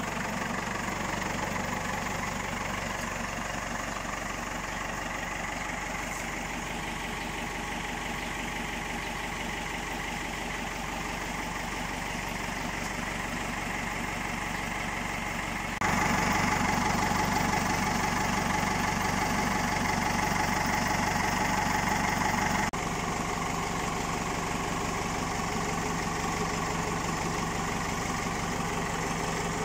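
Ford 5000 farm tractor's engine idling steadily. It gets abruptly louder for about seven seconds past the middle, then drops back to the same even idle.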